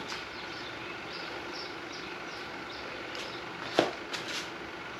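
Steady low background noise with one sharp metallic clink nearly four seconds in and a couple of lighter taps just after, from metal tools and engine parts being handled.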